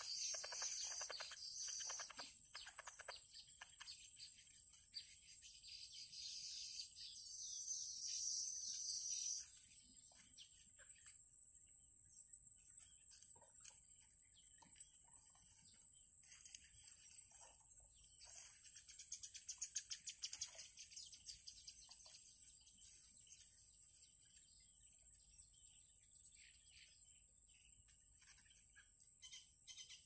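Birds chirping in quick high bursts, thickest in the first ten seconds and again around twenty seconds in, over a steady high-pitched whine.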